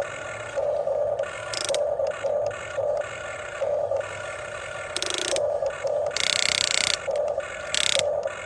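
Huina 1550 RC excavator's small electric gear motors whining in short stop-start spells as its arm and bucket are worked. A few louder, harsh noisy spells come in between, the longest about halfway through.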